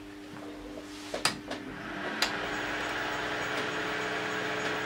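Barrel scanner club light running with its mirror barrel turning: a steady low hum, a few sharp clicks just over a second in and again about a second later, then a steady mechanical whir that comes up and holds.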